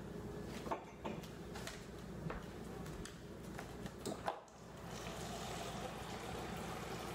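A few light clicks and knocks as a plastic cup is handled, then, about five seconds in, a refrigerator door dispenser running water into the cup in a steady stream.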